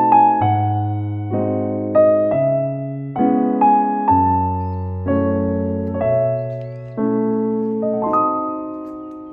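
Gentle background music on piano or electric piano: a slow melody over chords, notes struck and left to decay, ending on a held chord that fades away.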